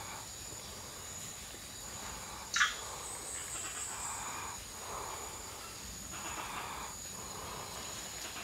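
Steady high-pitched insect drone of tropical forest, with one sharp, loud call that falls quickly in pitch about two and a half seconds in.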